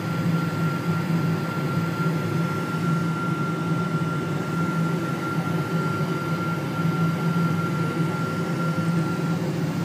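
Cabin noise of a Boeing 777-200ER taxiing: a steady drone of its Rolls-Royce Trent engines at taxi power and the cabin air conditioning, with a thin steady whine over a low hum.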